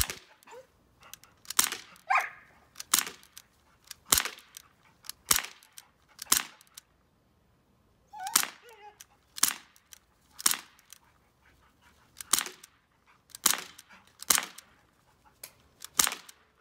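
Daisy Powerline 5501 CO2 blowback air pistol fired about a dozen times, roughly one sharp crack a second with a short pause partway through. A dog whines briefly between shots, twice.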